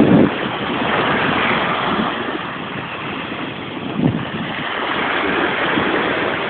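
Waves washing onto a shingle beach, with wind blowing on the microphone and a brief gust about four seconds in.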